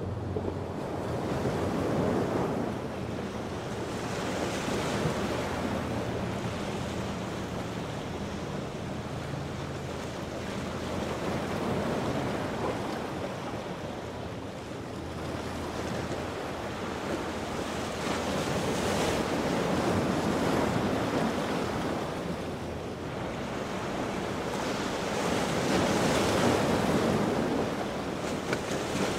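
Surf breaking and washing at an inlet, swelling and falling every several seconds, with wind buffeting the microphone. A boat engine hums faintly under it for roughly the first ten seconds.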